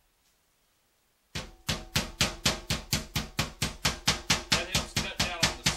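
Meat mallet pounding chicken breasts under plastic wrap on a cutting board, a steady run of sharp blows at about four to five a second that starts suddenly about a second and a half in. The chicken is being flattened to about three-eighths of an inch thick.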